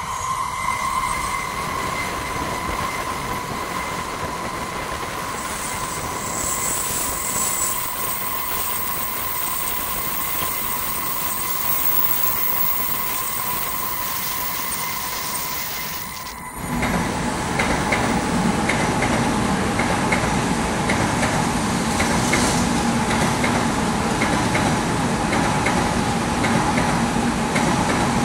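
N700-series Shinkansen bullet trains passing at speed, with a steady high-pitched whine over a rushing noise. About halfway through it turns suddenly louder and deeper, with rapid clicking from the wheels on the track as a train runs close by.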